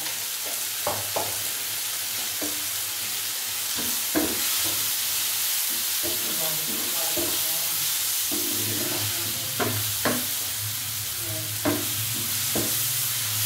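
Onion-tomato masala with freshly added spices sizzling in hot oil in a frying pan while being stirred with a wooden spatula. The spatula knocks and scrapes against the pan several times over the steady sizzle.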